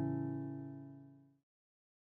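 The last strummed acoustic guitar chord of a short outro jingle, dying away and cut off about a second and a half in, then silence.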